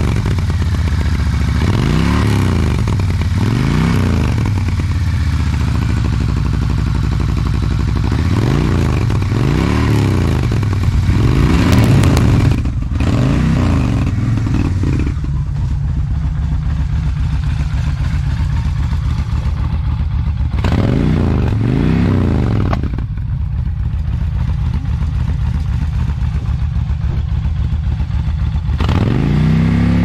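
1999 Kawasaki Vulcan 1500 Drifter's V-twin exhaust, running through only a gutted primary muffler with the secondary muffler removed, on a cold engine. It starts with a string of throttle blips, each rising and falling in pitch about every two seconds. After that it settles into a steady, lumpy idle with a couple more single revs, one of them near the end.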